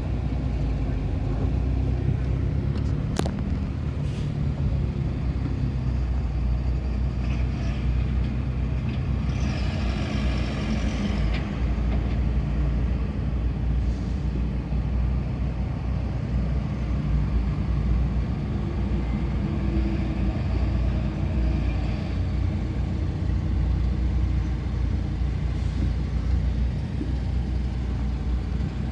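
Vehicle engines running in a slow traffic queue: a steady low rumble. About ten seconds in, a hiss lasts roughly two seconds, with a single click earlier.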